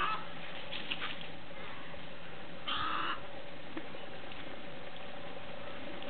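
Harsh, raspy squawks of egrets in a feeding flock: a short one at the start and another, about half a second long, about three seconds in, over a faint steady hum.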